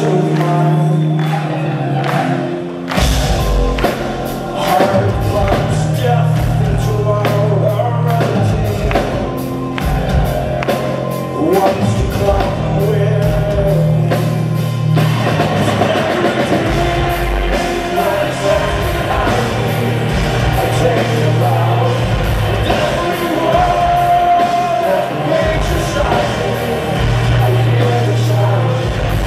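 A metal band playing live in a large hall, heard from the audience: a male lead vocal over guitars and keyboards, with the full drum kit and bass coming in hard about three seconds in and carrying on to a steady heavy groove.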